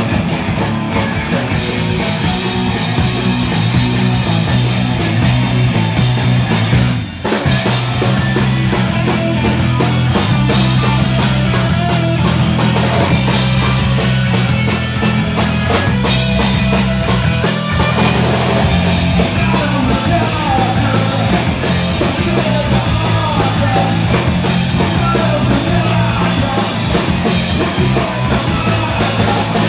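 Live punk rock band playing loud, with a pounding drum kit under the music and one very short break about seven seconds in.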